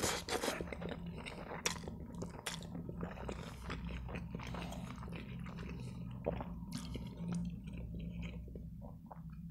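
Close-miked mouth sounds of eating spaghetti in tomato sauce: a slurp of noodles right at the start, then wet chewing with lip smacks.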